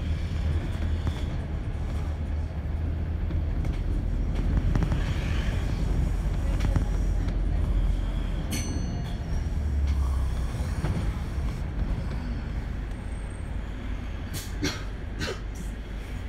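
Interior sound on a moving double-decker bus: a steady low engine and road rumble. A few short sharp clicks or rattles come about halfway through and twice near the end.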